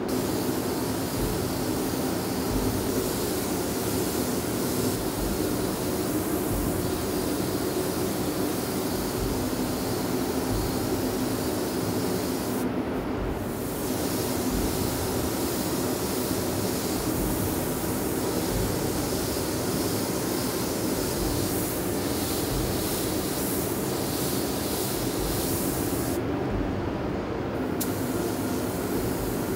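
Gravity-feed air spray gun hissing steadily as it sprays coating onto a small replica, over the constant hum of a spray-booth extraction fan. The hiss cuts out briefly about halfway through and again near the end while the hum carries on.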